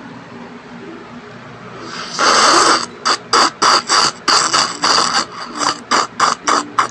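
A person drinking from a paper cup close to the microphone: a loud slurp about two seconds in, then a rapid series of gulps, roughly three a second, until near the end.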